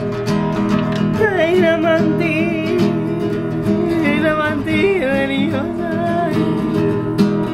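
A woman singing a wavering, ornamented melody over strummed acoustic guitar. The guitar plays throughout; the voice comes in about a second in and stops near the end.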